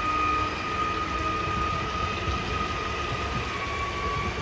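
Škoda 16Ev electric multiple unit moving past, its traction motors giving a steady high whine over a low rumbling noise; the whine drops slightly in pitch near the end.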